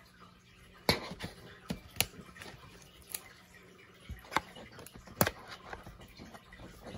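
Clear plastic card sleeve and hard plastic card case handled as a trading card is slipped into them: light rustling with a few sharp plastic clicks about a second apart.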